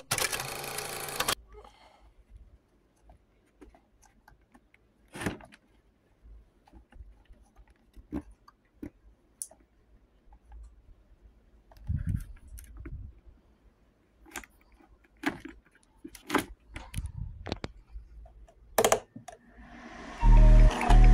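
Scattered small plastic clicks and knocks from a finger handling and turning the month dial of a humidifier. A short loud sound comes at the very start, and about a second before the end a loud steady sound begins.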